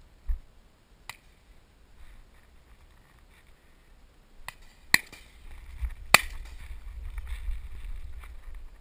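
A few sharp knocks or cracks; the two loudest come about five and six seconds in, then a low rumble sets in.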